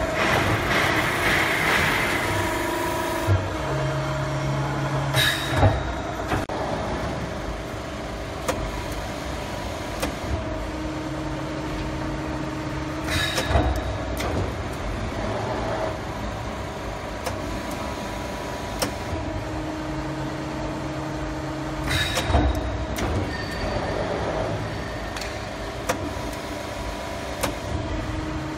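125-ton, 4-metre WE67K CNC hydraulic press brake cycling its ram: a steady hum from the hydraulic unit, with a louder low tone coming in for two or three seconds during each stroke and a sharp clack as each stroke ends, three times about eight seconds apart.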